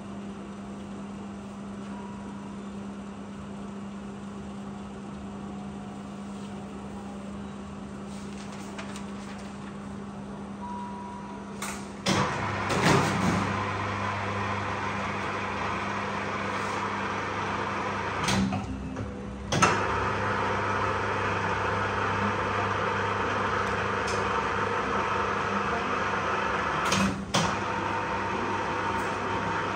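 Lithograph press work: a steady hum, then from about twelve seconds in a louder steady machine hum, with several sharp knocks and clatters of the press and tympan being handled.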